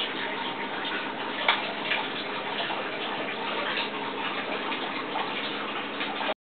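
Steady trickle and splash of water circulating through an aquaponic system, with irregular small ticks and one sharper click about one and a half seconds in.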